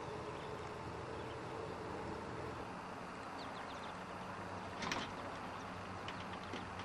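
A screen door knocks once as it is pushed open, about five seconds in, over a steady low hum, with a few faint high chirps.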